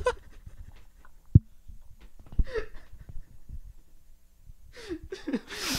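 Near-silent laughter into handheld microphones: breathy gasps and wheezes building again toward the end, with one sharp handling knock about a second and a half in and a softer one a second later.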